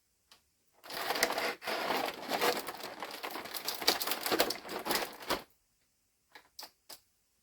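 Toy packaging being handled and opened, a dense crinkling and crackling of cardboard and plastic lasting about four and a half seconds, followed by a few light clicks near the end.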